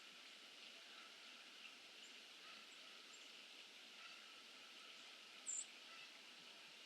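Faint scattered bird chirps over a steady background hiss, with one short high-pitched chirp, the loudest sound, about five and a half seconds in.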